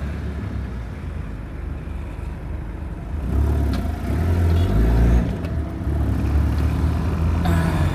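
Toyota Hilux engine and road noise heard from inside the cab while driving, a steady low rumble that grows louder about three seconds in.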